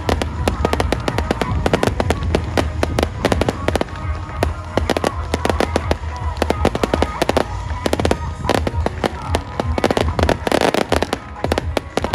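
Fireworks going off in a rapid, continuous barrage of sharp bursts and crackles, several a second, with music playing underneath.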